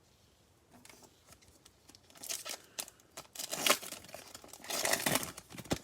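A trading card pack's foil wrapper being torn open and crinkled, in a run of rustling, crackling bursts that starts about two seconds in and is loudest in the middle and near the end.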